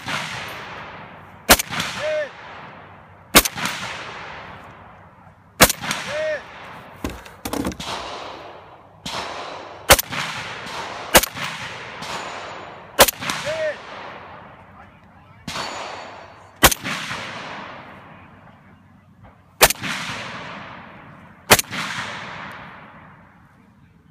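FAL-pattern semi-automatic rifle firing slow, aimed single shots, about ten of them at intervals of one to three seconds. Each shot is followed by a long echoing decay.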